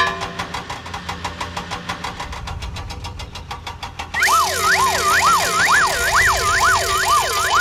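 Cartoon vehicle sound effects: an engine chugging at a fast, even rhythm, joined about four seconds in by a loud wailing siren whose pitch swoops up and down over a hiss.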